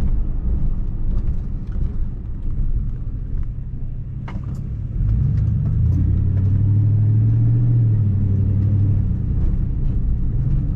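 Car engine and road rumble. About five seconds in it grows louder, with a steady engine hum that rises slightly in pitch and then drops away near the end.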